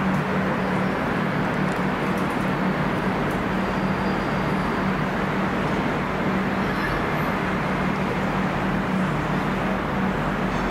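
Diesel locomotive idling, a steady low engine hum under an even wash of station noise.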